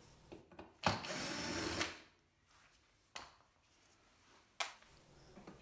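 Cordless drill-driver running for about a second as it backs a screw out of a dishwasher's service access panel, followed by two short knocks.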